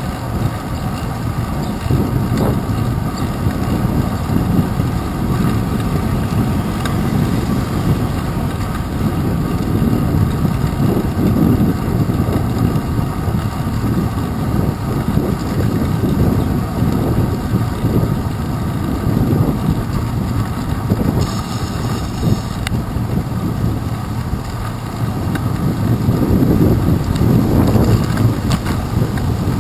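Wind buffeting a handlebar-mounted GoPro Hero 2 while a bicycle rides over wet pavement: a steady, rumbling rush that swells a little near the end.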